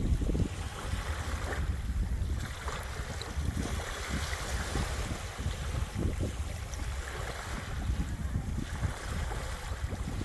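Small waves lapping and washing on a beach at ebb tide, a hiss that swells and fades every few seconds, with wind buffeting the microphone in a steady low rumble.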